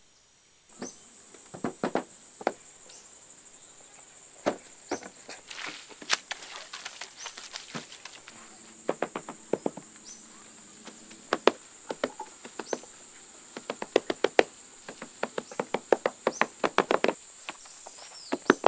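Insects droning in one steady high whine from about a second in. Over it come irregular sharp knocks and taps of manual building work, some in quick runs of several strokes.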